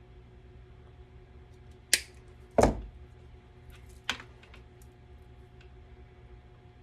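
Sharp clicks and knocks of the inflator's small parts being handled. The loudest is a thump about two and a half seconds in, with one knock shortly before it, another about a second after, and a few faint ticks, over a low steady hum.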